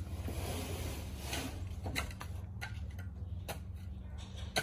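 Footsteps in flip-flops on dirt and boards: irregular sharp slaps or clicks, roughly one every half second to a second, with the sharpest near the end, over a steady low rumble.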